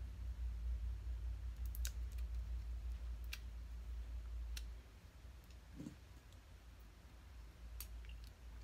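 A few faint, sharp plastic clicks at irregular intervals as fingers pick and twist at a makeup pencil and its packaging, over a low steady hum that drops away about halfway through.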